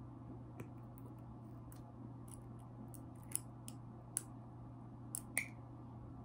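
Steel needle driver and tissue forceps clicking as a needle and suture are worked through a silicone suture pad: irregular short sharp clicks, with a few louder ones in the second half.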